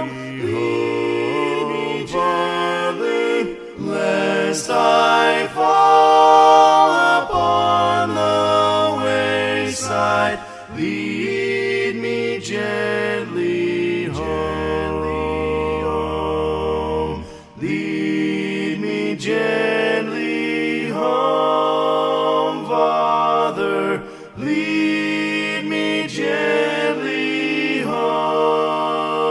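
A group of voices singing a hymn a cappella in harmony, with no instruments. Long held chords change every second or two over a low bass part.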